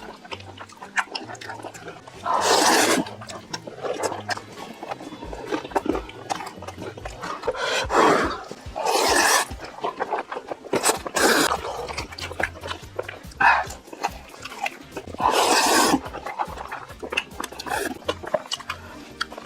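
Close-miked eating sounds from a big-bite mukbang: wet chewing and mouth smacking with a dense run of small clicks, broken by several loud noisy bursts under a second long.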